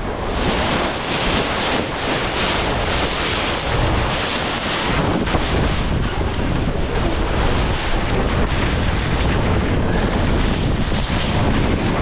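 Wind buffeting the microphone over the rush of water along the hull of a J70 sailboat heeled and sailing in strong wind, with gusts rising and falling.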